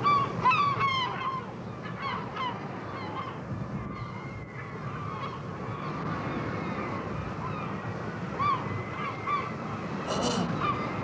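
Gull cries over a steady rushing like surf. The calls come thickly in the first second and a half, then a few more now and then.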